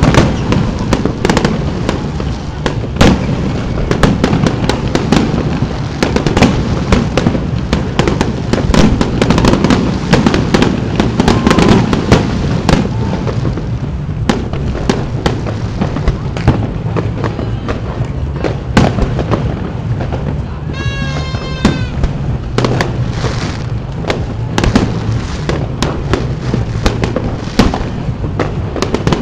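Aerial fireworks shells bursting in quick succession: a dense string of sharp bangs over a steady low rumble, with a short wavering pitched tone about two-thirds of the way through.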